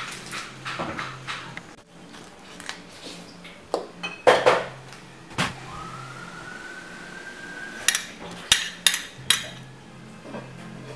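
Cooking utensils clinking and knocking against a wok and a small bowl: scattered sharp clinks, with a loud knock near the middle and a quick run of clinks near the end. A faint steady low hum runs underneath, and a thin rising tone sounds briefly just past the middle.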